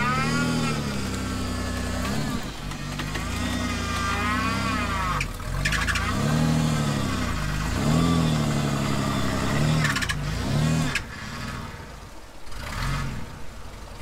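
Off-road buggy's engine revved up and down over and over, its pitch rising and falling about six or seven times before it dies down near the end.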